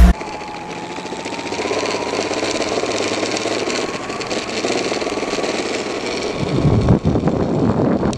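Longboard wheels rolling on asphalt: a steady rushing rumble that grows louder and rougher about six and a half seconds in.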